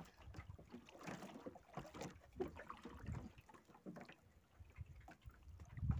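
Water sloshing against a small boat's hull with wind on the microphone, and scattered light clicks and knocks of fishing line and gear being handled; a low thump just before the end.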